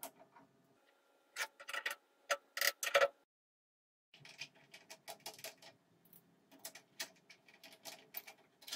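Light metallic clicks and clinks of parts being handled by hand on a milling machine: a steel bar knocked against the jaws of the machine vise, then a drill bit in a collet being pushed into the spindle's collet nut. The loudest clinks, with a slight ring, come in a cluster a couple of seconds in. There is a second of dead silence just after three seconds, then lighter clicks.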